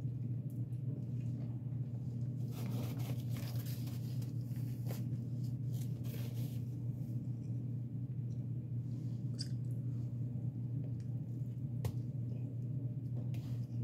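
A steady low hum runs under close mouth sounds of a person chewing a soft fish sandwich. The chewing comes in a few short noisy bursts, and there is a sharp click near the end as another bite is taken.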